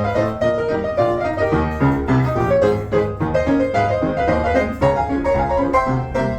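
Piano music: a run of quickly struck notes over a steady low bass.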